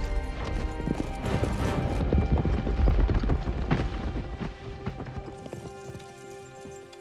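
Horses galloping, a dense clatter of many hoofbeats over a low rumble, with film score music underneath. The hoofbeats fade away over the last couple of seconds, leaving only the music.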